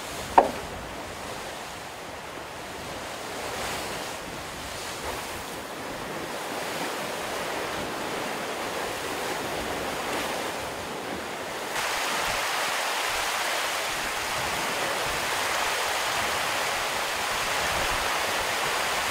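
Sea water rushing along the hull of a Volvo Ocean 65 racing yacht under sail, with wind. There is a short sharp squeak falling in pitch about half a second in, and the rush becomes louder and brighter about twelve seconds in.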